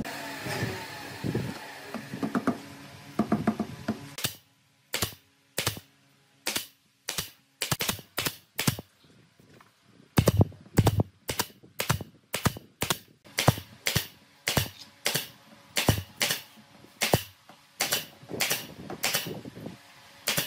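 A long string of sharp knocks, roughly two a second, each separate and crisp, with a short lull near the middle and the heaviest strikes just after it. Before the knocks begin, a few seconds of mixed workshop handling noise.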